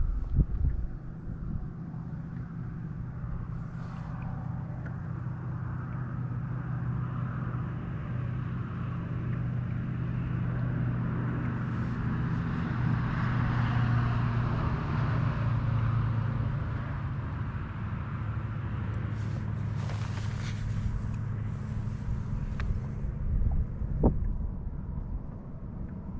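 A boat's outboard engine running at a steady speed, with wind and water rushing past, getting louder toward the middle and then easing off.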